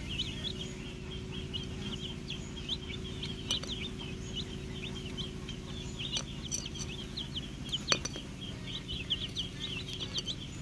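Many baby chicks peeping, short high chirps overlapping one another without a break. A few sharp clicks cut in, the loudest about eight seconds in.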